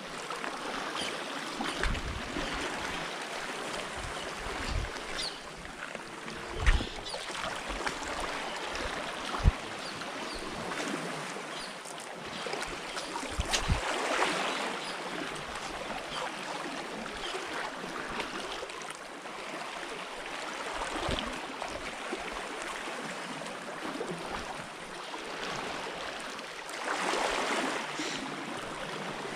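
Steady wash of shallow sea water and small waves at the shore, with a few short low thumps.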